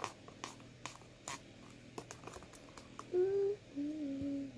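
A utensil clicking and scraping in a bowl of slime as it is mixed, then a girl humming a held tune from about three seconds in.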